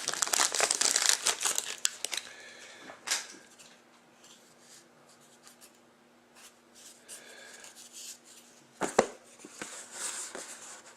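Packaging being crinkled and torn open by hand as a trading card box is unwrapped: a dense crackle for the first two seconds, then quieter handling with a couple of sharp clicks, one about three seconds in and another near nine seconds.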